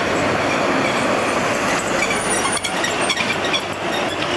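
Articulated electric tram passing close by, its steel wheels running on the street rails with a steady rumble and a run of clicks and short squeals in the middle.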